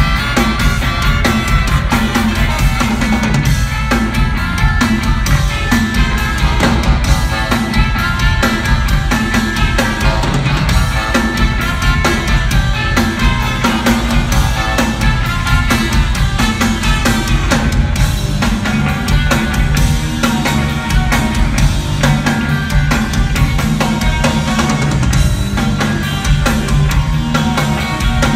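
A live rock band playing: a steady drum-kit beat under electric guitars, bass, saxophones and trumpet, loud and continuous throughout.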